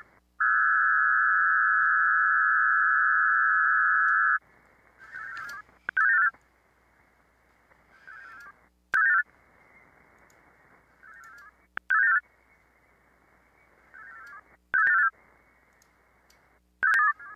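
VARA-HF digital modem audio over a ham radio's SSB audio. A steady buzzing data tone runs for about four seconds. Then short data bursts go back and forth, a faint one and a louder one roughly every three seconds, over a faint receiver hiss, with a couple of sharp clicks. This is the modems exchanging data and acknowledgements on an open VARA connection.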